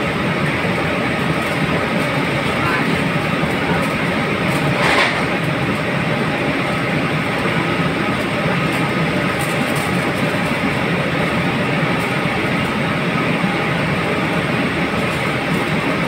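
Steady, loud noise of commercial kitchen equipment running. Aluminium foil crinkles as it is folded around a fish, most clearly about five seconds in.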